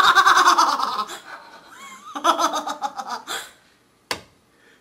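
Hearty laughter in two bursts, the first loud and the second shorter, then a single sharp click near the end.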